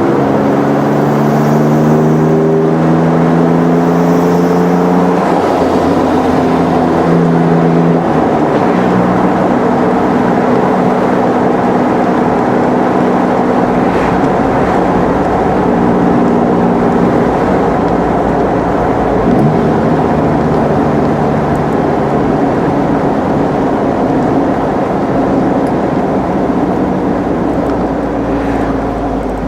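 Corsa's exhaust note on a test run under way: the engine pitch climbs over the first few seconds as it accelerates, drops back a few times, then holds fairly steady over constant road and wind noise.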